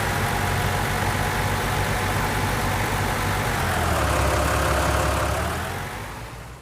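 Heavy diesel engine running steadily, with a higher whine that dips in pitch about four seconds in; the sound fades out near the end.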